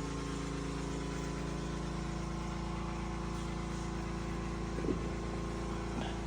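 Toyota Noah/Voxy (AZR60) engine idling steadily, with two short falling squeaks near the end.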